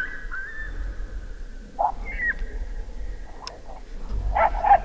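Coyote-style howling: a wavering howl tails off in the first second, then a short high call that drops in pitch about two seconds in.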